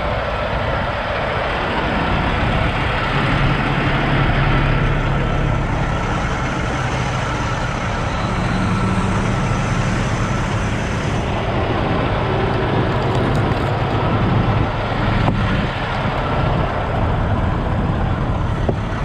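Semi-truck diesel engine idling: a steady low rumble and hum that holds at an even level throughout.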